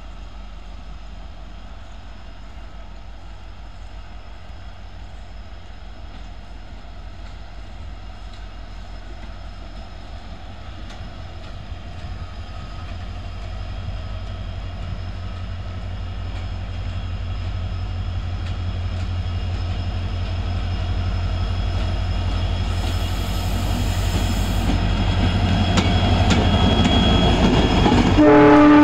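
WDP4 diesel locomotive's EMD two-stroke engine approaching at speed with its train, the rumble of engine and wheels growing steadily louder as it draws near. A short horn blast sounds near the end as it reaches the camera.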